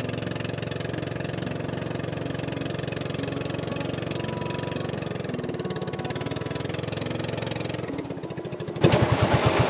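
The small motor of a Philippine outrigger boat (bangka) running steadily under way. Near the end the engine note drops away and loud splashing of spray against the hull takes over.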